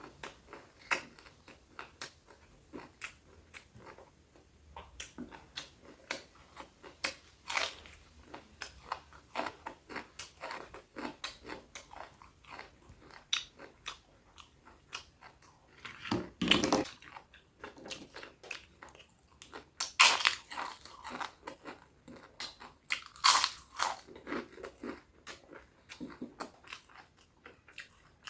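A person chewing and biting food close to the microphone: a steady run of small wet chewing clicks, with louder crunching bursts about halfway through and twice more near the end.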